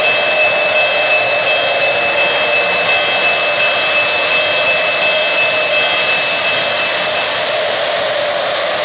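O-gauge model freight trains running on three-rail track: a steady rolling rush of metal wheels and motors, with a high steady whine over it.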